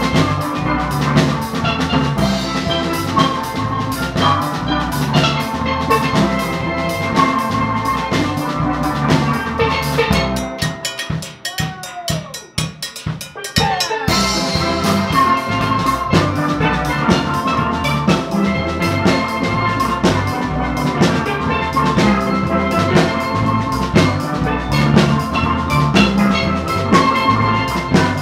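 Live steel drum band playing an upbeat tune, steel pans over a drum kit. About ten seconds in the bass and drums drop out for a sparse few-second break, then the full band comes back in.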